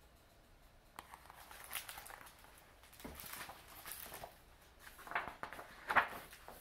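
Faint rustling and soft taps of a hardcover picture book being handled and turned, a little louder near the end.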